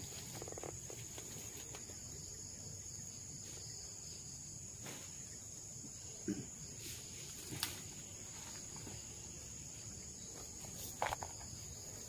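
Steady high-pitched chorus of insects, crickets by the sound of the tags, in a palm grove at dusk, broken by a few short sharp clicks, the loudest a little after 6 s, near 7.5 s and about 11 s in.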